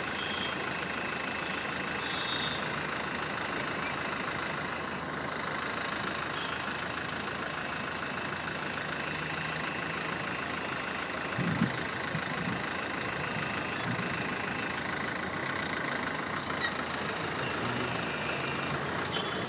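Cars idling in a city traffic jam: a steady engine hum, with a few short low thumps a little past halfway.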